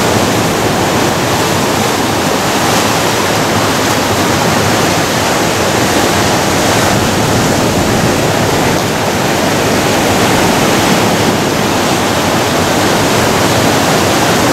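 Ocean surf breaking and washing over a rocky shoreline: a loud, steady rush of water with no pauses.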